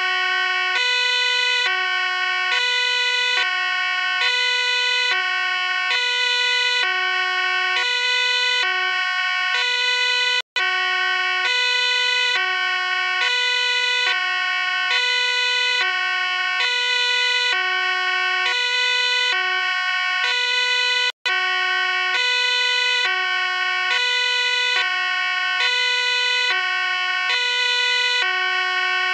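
Background music: a bright electronic melody of short held notes, looping over and over. It cuts out briefly twice, where the loop restarts.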